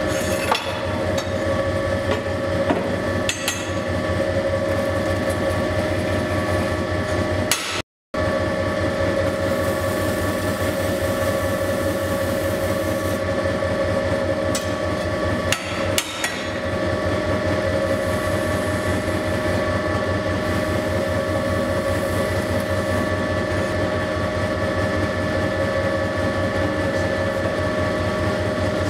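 Motorised wheel running steadily with a constant motor whine and a rumbling clatter, while a metal turning tool scrapes the spinning plaster mould, with a few sharper scrapes and knocks. The sound cuts out for a moment just under a third of the way in.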